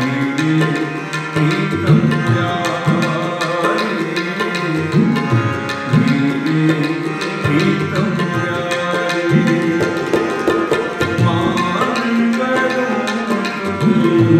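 Harmoniums play a kirtan melody over fast tabla strokes, the tabla's bass drum bending in pitch on its deep strokes.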